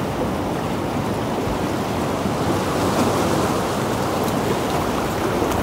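Sea surf washing and churning around shoreline rocks, a steady rush of water.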